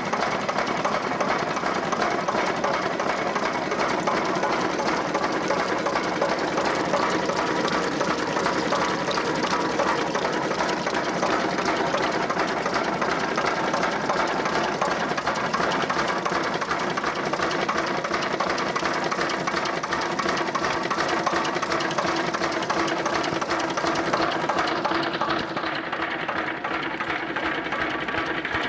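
Slavia D15 15 HP stationary diesel engine running steadily with a fast, even knocking beat. The sound turns duller near the end.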